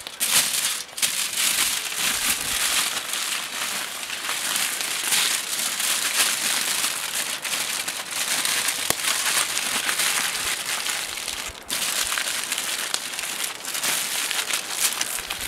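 Aluminium foil crinkling and crumpling continuously as it is folded and pressed by hand around a brisket, with a short pause about three-quarters of the way through.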